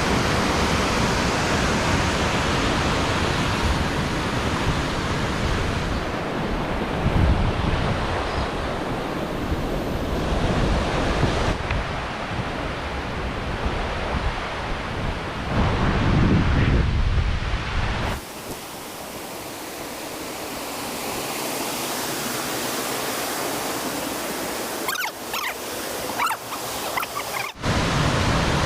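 Wind rushing over the microphone of a mountain bike on the move, with heavy rumbling buffeting. About eighteen seconds in it eases to a thinner, steadier hiss with a few clicks, then breaks off abruptly near the end.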